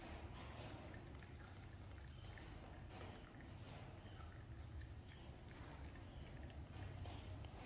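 Faint chewing with small clicks as a monkey eats corn kernels off the cob, over a low steady hum.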